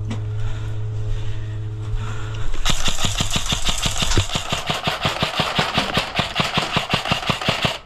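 A steady low hum, then about three seconds in an airsoft gun opens up on full auto: a long, rapid stream of shots lasting about five seconds that cuts off suddenly.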